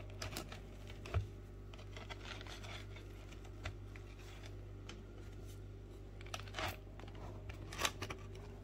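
A knife cutting slowly through the crisp crust of a freshly cooked, still-hot harcha semolina flatbread on a wooden board: scattered crackling crunches, a few of them sharper, over a steady low hum.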